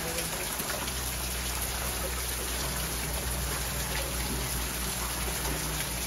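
Steady rain falling, an even hiss with no breaks.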